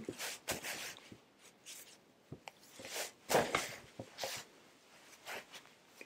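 Hands gripping and working sock-covered feet during chiropractic foot adjustments: short strokes of fabric rustling against socks and skin, with a few faint clicks.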